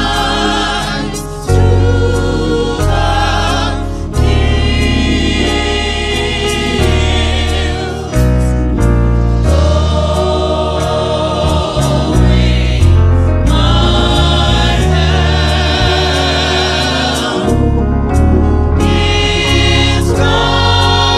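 Small gospel vocal ensemble singing together through microphones, with vibrato on the held notes, over sustained low accompaniment notes that change in steps.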